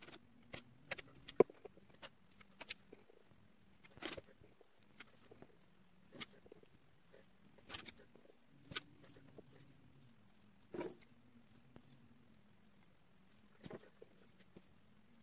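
Quiet, scattered taps and scrapes of a palette knife working wet decorative plaster on a board, one every second or two, the sharpest about a second and a half in, over a faint low hum.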